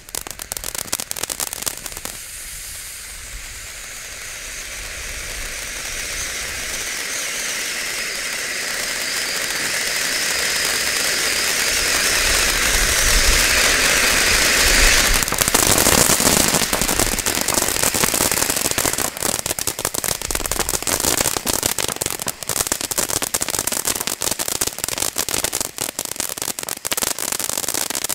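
Ground fountain firework spraying sparks. It gives a crackle at first, then a steady hiss that grows louder for about twelve seconds, then breaks into dense crackling about halfway through.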